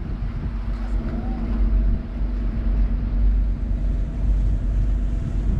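Motor boat under way: its engine drones steadily as a deep rumble with a few steady hum tones, over a constant rushing hiss.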